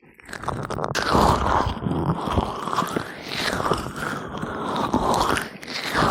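Gloved hands rubbing oil over the ears of a close microphone: a close, wet, crackly rubbing that swells and fades in slow strokes.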